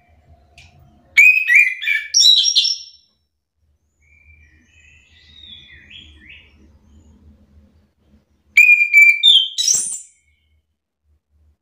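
Chestnut-capped thrush singing: two loud phrases of clear whistled notes run into quick chatter, about seven seconds apart, with a much softer warbled phrase between them.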